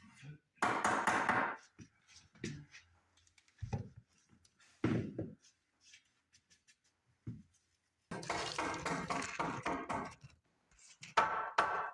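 Hammer blows on wood as a 2x4 board is pounded into place under a sagging doorway to push the wall up, with clattering and handling noise between; a quick run of knocks, about four or five a second, comes near the end.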